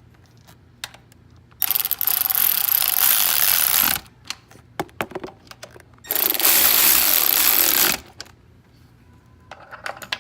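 A handheld power tool driving down the mounting nuts of a new EVAP canister purge valve on the intake manifold, in two loud runs of about two seconds each, with small clicks of metal parts between them.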